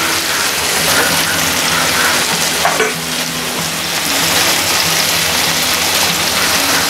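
Marinated chicken breasts shallow-frying in oil on a hot flat tawa, with a steady, even sizzle.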